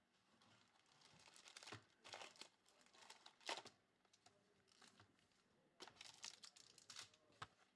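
Faint crinkling and tearing of a plastic trading-card pack wrapper being opened by hand, in irregular crackles, loudest about halfway through.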